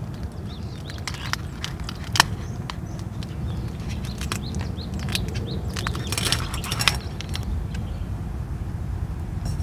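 Hands handling a tortilla wrap on a perforated metal plate: soft rustling and scattered light clicks, with a denser crinkling stretch about six to seven seconds in, over a steady low rumble.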